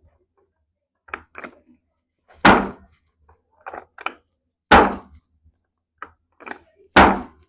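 Repeated thumps during a chiropractic manipulation: three loud, heavy thuds about two seconds apart, each led by two or three lighter knocks.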